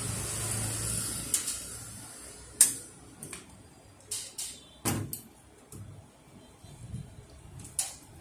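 Sharp metallic clicks and small knocks from a screwdriver and the sheet-metal frame of a Ricoh 5001/5002 fuser cleaning-web unit being handled, several clicks scattered through, with a rushing noise in the first second and a half.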